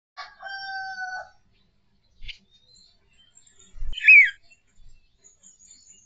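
Birds calling: one steady, held call about a second long at the start, then a loud, short arching chirp about four seconds in, just after a low thump.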